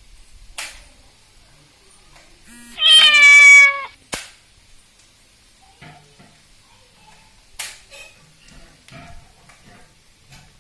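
A domestic cat gives one loud meow about three seconds in, lasting about a second and falling slightly in pitch. A few brief clicks and scuffs sound around it.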